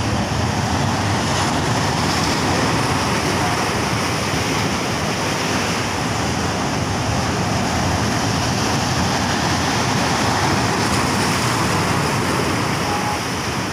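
Ocean surf: waves breaking and washing in foam over shoreline rocks, a steady continuous rush.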